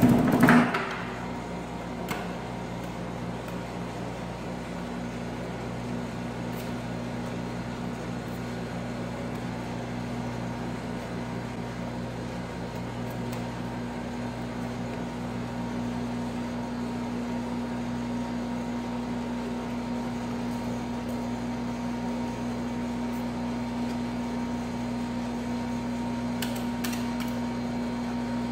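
Steady hum of the cold pan's refrigeration unit running under a rolled-ice-cream plate. In the first second, a metal scraper chops sharply on the steel pan, followed by only faint, occasional scraping as the ice cream is spread thin.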